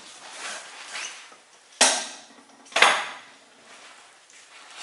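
A backpack being handled: rustling and crinkling of its stiff fabric, with two sharp crinkles about a second apart in the middle.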